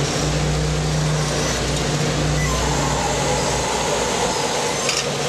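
Steady running of a fishing boat's engine and deck machinery: a constant low hum under an even hiss, the hum easing a little after about three and a half seconds.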